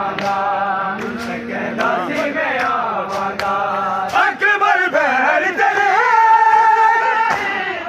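A crowd of men chanting together in unison, accompanied by sharp slaps of hands on bare chests in a regular beat. The voices hold long notes in the second half.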